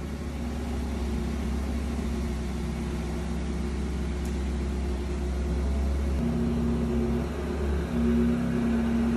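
Porsche 918 Spyder's 4.6-litre V8 idling steadily, a low even hum with higher tones that come and go in the second half.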